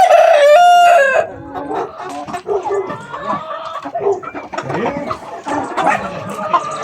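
A rooster crows once, loud, for about a second at the start, followed by chickens clucking.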